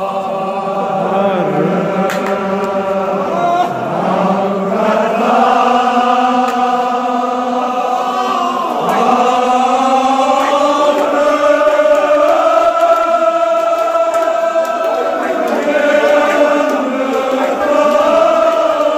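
Men's voices chanting a Kashmiri marsiya, a mourning elegy, together in long drawn-out notes that slowly rise and fall.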